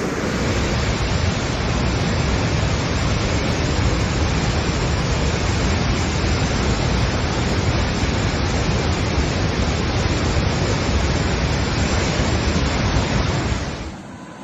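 Floodwater of an overflowing river rushing past in a steady, loud, unbroken wash of noise with a deep rumble underneath, cutting off near the end.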